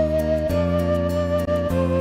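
Background music: a melody of long held notes over sustained chords, the melody note changing about half a second in and again near the end.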